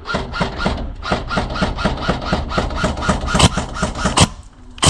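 Airsoft electric gun firing on full auto: a rapid rattle of shots with the gearbox motor humming under it. The rattle stops about four seconds in, and one sharp crack follows near the end.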